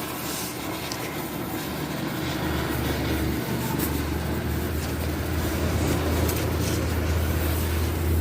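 Toyota Kijang's engine running through a newly fitted HKS aftermarket exhaust with a resonator, a low steady exhaust drone that gets louder about two and a half seconds in.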